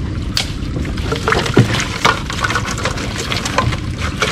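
Water splashing and dripping in a small boat as a fish trap is hauled and emptied, with irregular knocks and rattles over a steady low rumble.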